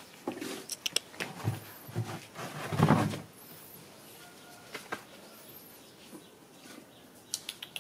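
Scuffling and rustling of a dog and two baby monkeys in cloth clothes and diapers tussling on dirt ground, with scattered small clicks and a louder scuffle about three seconds in.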